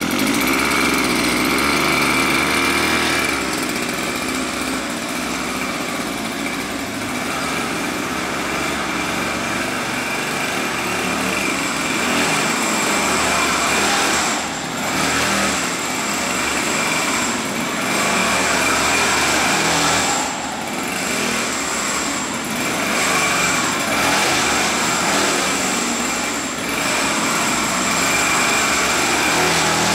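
Small gasoline engine of a radio-controlled buggy, running on biofuel, buzzing steadily with a high-pitched whine; its level drops briefly three times, about halfway through, two-thirds through and near the end.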